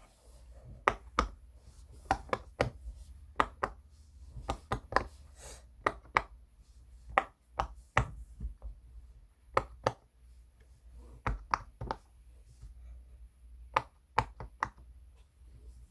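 Silicone pop-it push-pop fidget toy bubbles being pressed, a run of short, sharp pops that come in small clusters with brief pauses between them, as players take turns pressing one to three bubbles each.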